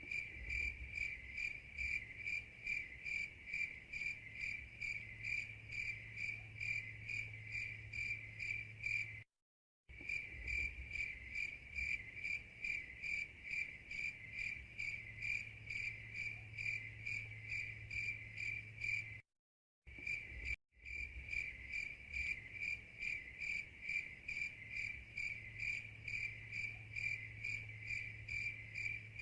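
Crickets chirping in a fast, even pulse of several chirps a second over a low steady hum. The sound cuts out to dead silence for about half a second twice, then carries on unchanged.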